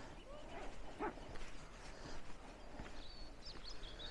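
A small bird's rapid, high chirping starts about three seconds in, over faint outdoor ambience and a few light knocks like footsteps.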